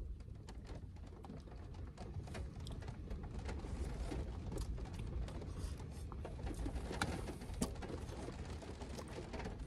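A person eating noodles: slurping and chewing, with small clicks of a fork against a Jetboil cup, over a steady low rumble.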